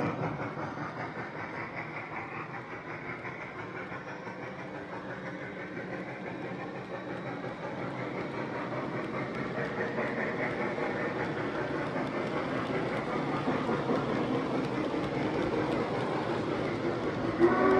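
Aristocraft Union Pacific heavyweight passenger cars of a G scale model train rolling past on the track, a steady rumble of wheels with fine clicking that eases off a few seconds in and then slowly grows louder. A train whistle starts right at the end.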